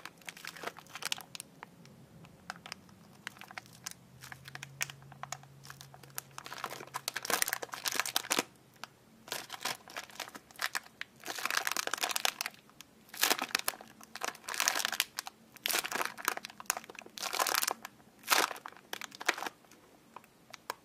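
Packaging crinkling and rustling as it is handled, in irregular bursts that come thicker in the second half.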